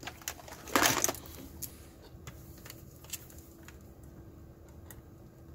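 Multimeter test probes and their leads being picked up and handled: a short clatter about a second in, then a few light, scattered clicks.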